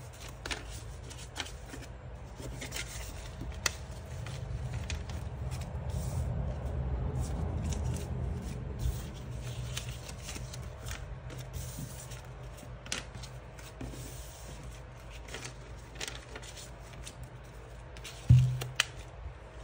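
Paper banknotes rustling and sliding as they are gathered and stacked by hand on a stone countertop, with scattered soft taps, over the steady low hum of a running fan. A single thump near the end.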